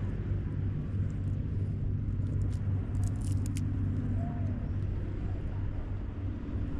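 A steady low engine hum, like a motorboat running at a distance. About three seconds in come a few faint clicks from the squid jig and line being handled.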